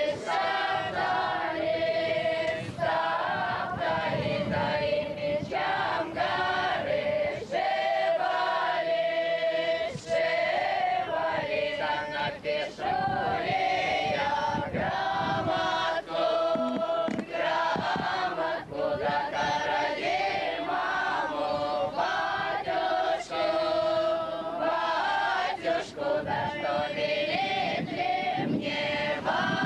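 A group of voices, women and men together, singing a Russian folk song in held, drawn-out notes.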